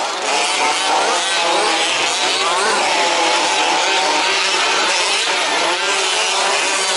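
Several 1/5-scale petrol RC trucks' small two-stroke engines running together at race pace, their pitches rising and falling as they rev and ease off.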